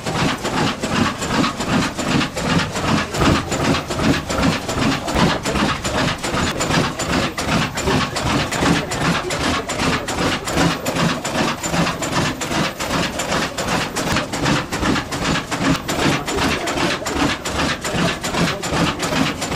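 1903 De La Vergne 125 HP single-cylinder, four-cycle open-crankcase oil engine (20,175 cubic inches) running steadily, with an even mechanical clatter of about two to three knocks a second.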